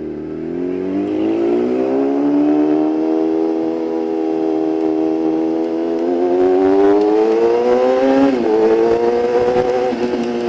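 Yamaha YZF-R6 inline-four running through an aftermarket Shadux exhaust, its pitch rising over the first two seconds as it pulls, holding, then climbing again. About eight seconds in the pitch dips sharply and picks back up.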